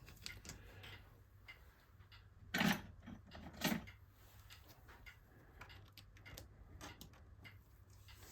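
Scattered light clicks and taps as the pegs holding the iMac's screen in place are unclipped and handled, with two louder knocks, about two and a half and three and a half seconds in.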